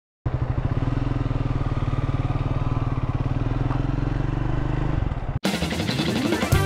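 Triumph Scrambler 400 X's single-cylinder engine running at a steady speed, its exhaust pulses even. It cuts off suddenly about five seconds in and music takes over.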